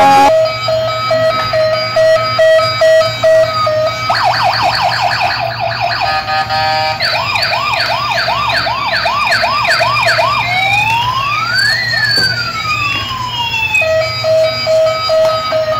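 Toy police car's electronic siren cycling through its patterns: a pulsing beep, then a fast warble about four seconds in, then a run of quick rising whoops, then slow rising and falling wails, and the pulsing beep again near the end.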